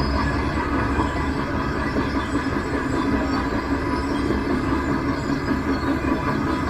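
A steady mechanical rumble with a rattling texture.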